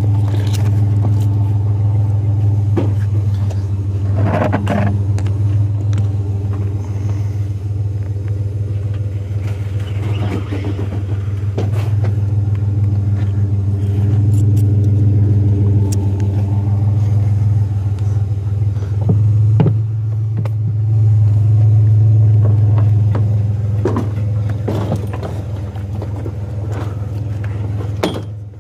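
A vehicle engine idling steadily, with scattered knocks and scrapes as a steel hot water heater is handled.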